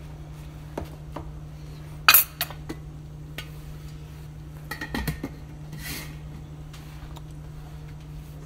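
Wooden spoon knocking against a stainless steel stockpot of collard greens, with a sharp clank about two seconds in. Then the metal lid is set on the pot with a clatter around five seconds in, over a steady low hum.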